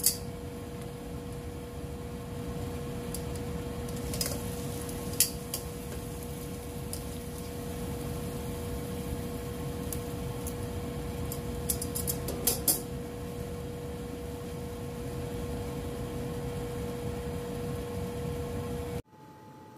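Pot of bitter bolete pieces at a rolling boil: a steady bubbling hiss under a constant hum, with metal tongs now and then clicking against the pot, in a cluster about twelve seconds in. The sound cuts off abruptly near the end.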